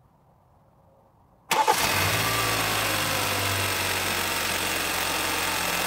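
Near silence, then about one and a half seconds in, the Hyundai Santa Fe's 2.0-litre turbocharged four-cylinder engine starts suddenly and settles into a steady idle. This is the first start on its new spark plugs.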